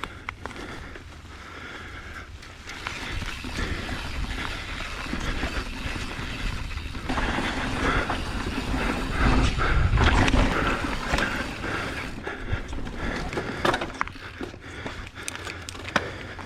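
Mountain bike riding a dirt trail: wind rushing over the microphone and tyre noise, with clicks and rattles from the bike. It builds to its loudest about ten seconds in.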